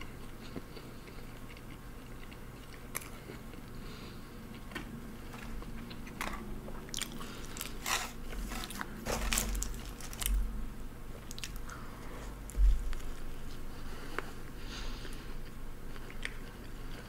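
Close-miked eating of a McDouble cheeseburger: biting and chewing, with a run of sharp crackling in the middle as the burger is handled on its paper wrapper, and one heavier thump a little after.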